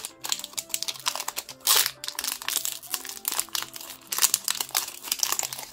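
Foil wrapper of a Pokémon trading card booster pack crinkling and tearing as it is peeled open by hand and pulled back from the cards: a quick run of sharp crackles, loudest about two seconds in and again about four seconds in.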